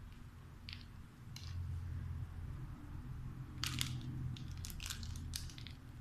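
Alexandrine parakeet biting and chewing on a plastic bottle cap: sharp crackling clicks of beak on plastic, a few at first, then in dense clusters from about three and a half seconds in until near the end, over a low steady hum.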